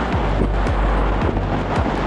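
Background music with a steady beat: deep kick drums about twice a second over a held bass.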